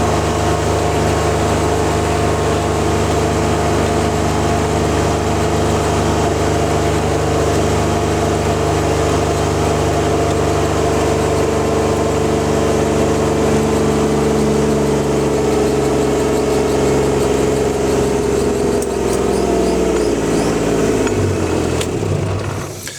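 RTV utility vehicle engine running steadily while driving, its pitch falling over the last few seconds as it slows down.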